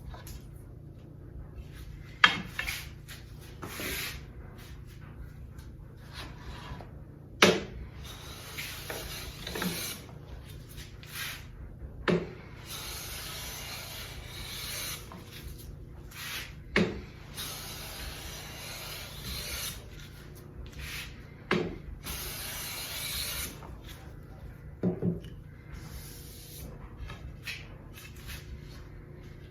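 Hand plane surfacing the face of a board, long rasping strokes of a few seconds each, with a sharp knock between strokes about every five seconds.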